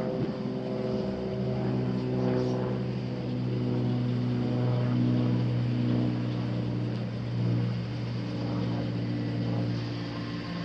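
2001 Chevrolet Silverado 1500's 6.0-litre gas V8 running steadily, an even low hum with small shifts in pitch.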